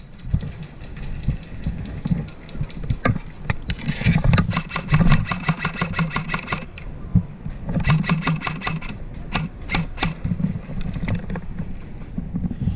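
Airsoft gun firing in rapid full-auto bursts: a long burst about four seconds in, a shorter one about eight seconds in, then a few single shots. A low rumble of handling and wind runs underneath.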